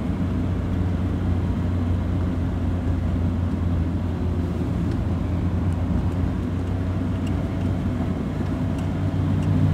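Car driving on a wet road, heard from inside the cabin: a steady low drone of engine and tyre noise.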